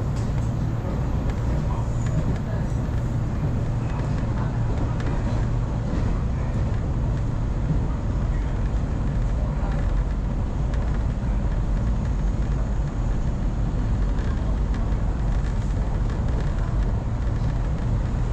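Train running along the line, heard from inside the passenger car: a steady low rumble from the running gear.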